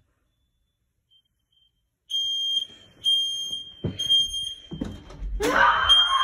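Home smoke alarm starting up about two seconds in, beeping with a shrill, high tone. Thumps of a child getting down from a bed follow, and near the end a loud yell or scream breaks in over the alarm.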